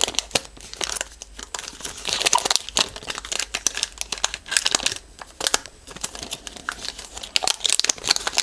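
Clear protective plastic film being peeled off a new Echo Dot smart speaker, crackling and crinkling irregularly as it comes away.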